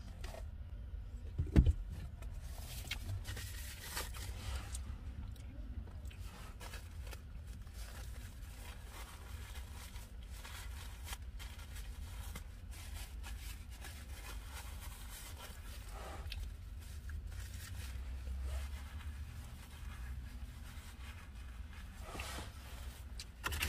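Quiet eating and handling of fast-food packaging: scattered soft clicks and rustles over a steady low hum, with one sharp knock about a second and a half in.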